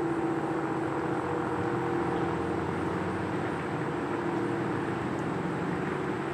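ACA P-50 outdoor warning siren holding a steady two-note tone that slowly fades a little, over a low rumble.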